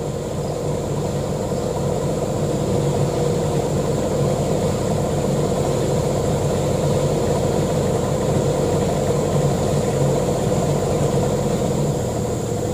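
Diesel engine of a Hino Ragasa 4x4 truck idling steadily, with a constant whining tone above the low engine note.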